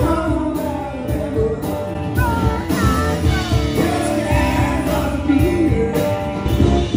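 Live rock band playing: a man singing over acoustic and electric guitars, bass guitar and a steady drum beat.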